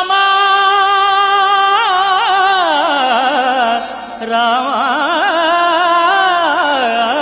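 Opening of a Telugu devotional song to Rama: a single melody line in Carnatic style, long held notes with wavering, ornamented turns over a steady low drone, with a brief break about four seconds in.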